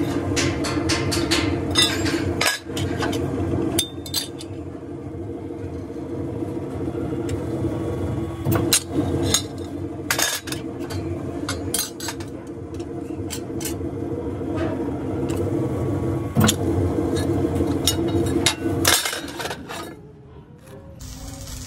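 Hydraulic guillotine shear's pump motor running with a steady hum, over a series of sharp metal clanks as iron sheet strips are cut and handled. The hum falls away near the end.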